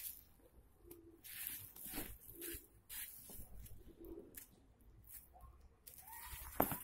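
Nylon fabric and webbing straps of a tactical backpack rustling in short bursts as hands turn it over and work its buckles. A dove coos faintly three times in the background.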